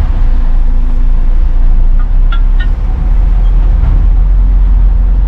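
Heavy lorry's diesel engine running with a loud low rumble, heard from inside the cab as the truck pulls away. A few light clicks come about two seconds in.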